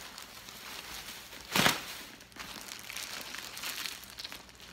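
A clear plastic bag around a leather tote crinkling as it is lifted and handled, with one loud rustle about a second and a half in.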